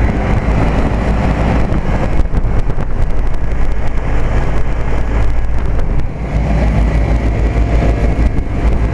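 1998 Trane Odyssey commercial split-system condensing unit running steadily with a deep hum. It is running at full speed and has not cycled off, as it does on a 90°F day.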